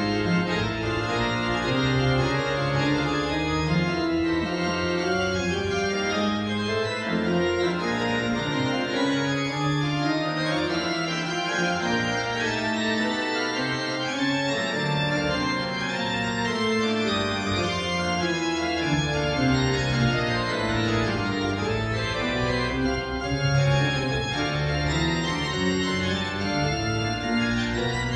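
Concert pipe organ playing a toccata: dense chords and moving notes over deep pedal bass. The deepest bass drops out for several seconds in the middle and comes back.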